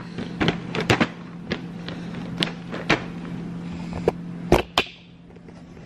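Ice tray and its lid being handled: a run of irregular small clicks and knocks, with a heavier thump about four and a half seconds in.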